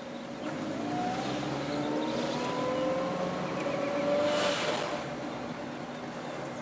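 1994 Toyota Celica engine heard from inside the cabin, its note rising steadily for about four seconds as the car pulls away under throttle, then dropping back as the throttle eases. The owner says this engine hesitates when given gas.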